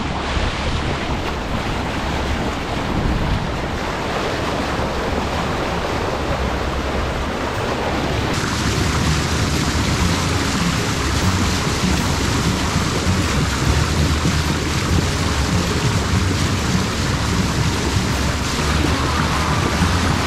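Bow wave rushing and splashing along the hull of a moving trawler, with wind buffeting the microphone. The noise is steady, with an abrupt change in tone about eight seconds in.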